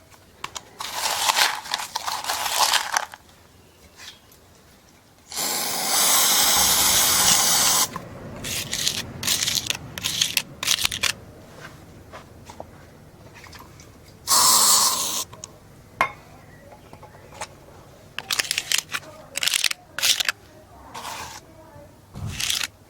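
Repeated gritty scraping strokes of a hand tool, one long steady stroke of nearly three seconds about five seconds in and a shorter loud one about fourteen seconds in, with many brief scrapes between.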